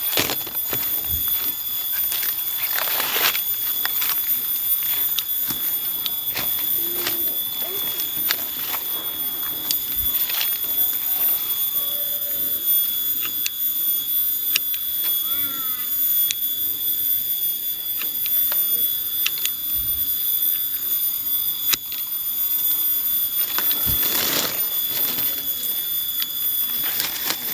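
Hand pruning shears snipping small durian branches: a few short sharp cuts with leaf rustling, about a second, three seconds and ten seconds in and again near the end. Behind them runs a steady high-pitched drone.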